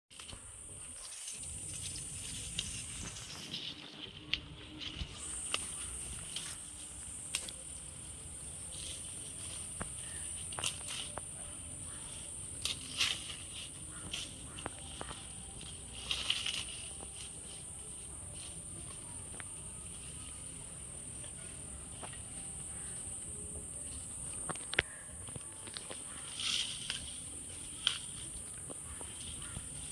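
A steady high-pitched insect chorus, dropping out for a moment about four seconds in, with scattered clicks and knocks over it.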